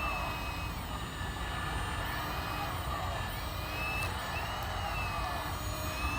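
Hydraulic pump whine of a 1/14-scale RC hydraulic excavator, its pitch rising and falling again and again as the machine is worked, over a steady low rumble.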